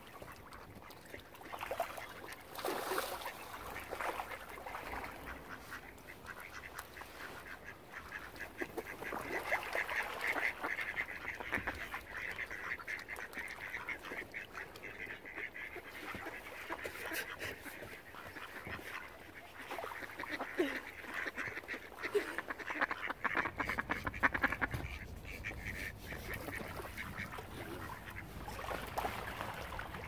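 Mallard ducks quacking in a run of many short calls, densest through the middle stretch. A low rumble comes in about two-thirds of the way through.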